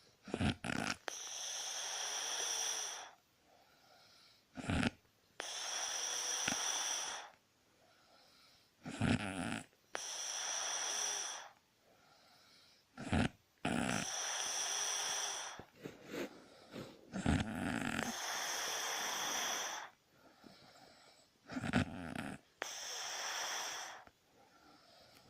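A sleeping pet snoring in a steady rhythm, about six breaths in all. Each is a short, low, rattling snore followed by a long hissing breath of two to three seconds, then a short pause.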